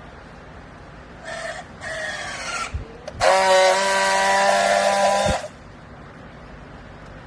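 A motor-driven machine whines briefly twice, the pitch falling each time. About three seconds in it runs loud and steady for about two seconds, then cuts off suddenly.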